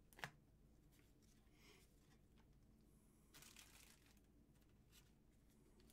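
Faint handling of baseball cards over low room hum: a small click about a quarter second in and a brief rustle of cards and packaging about three and a half seconds in.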